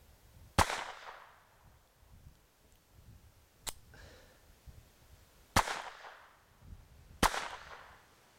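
Colt 1908 Vest Pocket pistol firing .25 ACP in slow, aimed single shots. There are three loud sharp reports and a fainter crack between the first two, each trailing off in a short echo.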